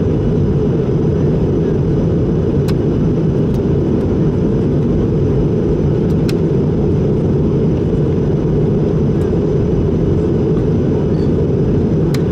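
Steady cabin roar inside an Airbus A220-300 airliner in flight, from its Pratt & Whitney PW1500G turbofans and the airflow over the fuselage, with a few faint clicks.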